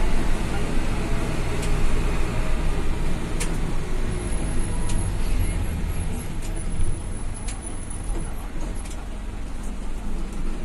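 A medium-size bus running on the road, heard from inside the cabin: a steady low engine and road rumble with a few sharp clicks scattered through it.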